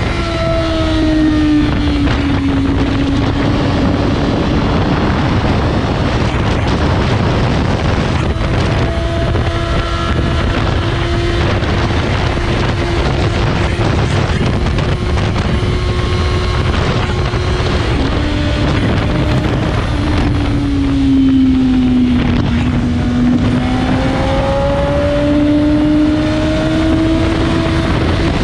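A Suzuki GSX-R1000 K5's inline-four engine running under way, with steady wind rush on the microphone. The engine note dips and climbs back twice, once near the start and again about two-thirds through, as the bike eases off and picks up speed.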